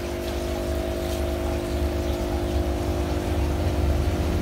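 Steady motor hum with a low rumble underneath, holding several constant tones, growing slightly louder near the end.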